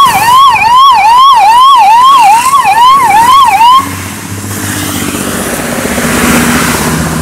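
Ambulance siren wailing in a quick rise-and-drop cycle, about two and a half times a second, which cuts off suddenly about four seconds in. After it, the lower engine and tyre noise of a car passing close by.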